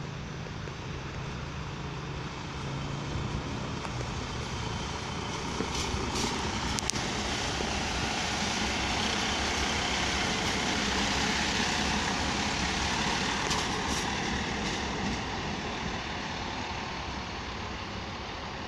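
SM42 diesel shunting locomotive passing close by, its engine running steadily. The rumble and the rolling noise of its wheels grow to their loudest about halfway through and then fade as it moves away. A couple of sharp clicks come about six seconds in.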